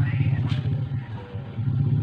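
A motor vehicle's engine running steadily with an even low throb, dropping away briefly about a second and a half in.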